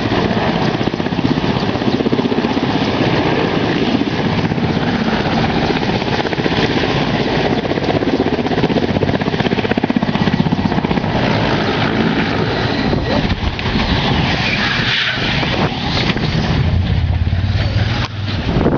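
Helicopter running loud and steady, its rotor making a fast continuous chop, with the sound shifting from about thirteen seconds in and dipping briefly near the end.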